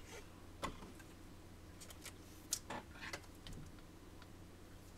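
Faint clicks and light taps of trading cards and their plastic holders being handled and set down, about eight scattered through, over a low steady hum.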